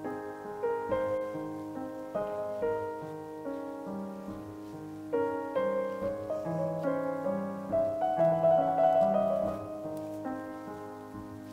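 Background piano music: a melody of sustained notes, a little louder near the end.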